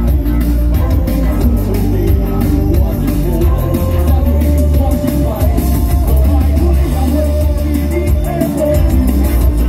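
A song played loud through a PA system at a live show, with a heavy bass and drum beat and voices on microphones over it.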